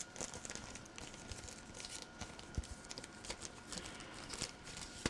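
Faint rustling of paper with scattered light taps and clicks as printed paper pieces are handled and shuffled, one sharper tap about two and a half seconds in.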